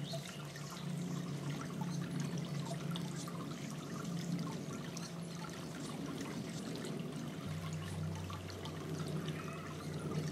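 Small garden bird fountain bubbling and trickling, with water spattering as a small bird splashes in it. A low steady hum runs underneath, and a deeper hum joins about three-quarters of the way through.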